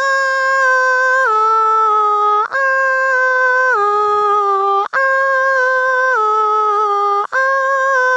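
A man humming in a high falsetto, imitating a female playback singer: a tune of long held notes, each phrase stepping down in pitch. Three phrases of about two and a half seconds each with short breaks between them, and a fourth beginning near the end.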